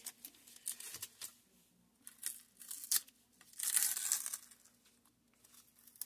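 Masking tape being peeled off the painted plastic hull of a scale model: several short rips, then one longer peel a little past halfway.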